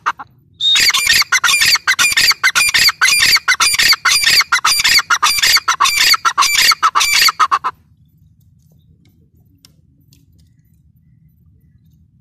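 Grey francolin (dakhni teetar) calling: a fast run of loud, harsh notes, several a second, lasting about seven seconds and then stopping abruptly.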